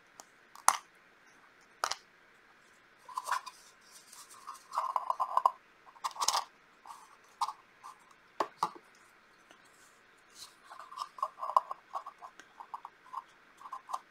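Hard plastic parts of a Portable Painter travel watercolor palette being handled: a series of sharp clicks and snaps as its black water cups are fitted onto the sides of the palette, with short scraping rattles between them.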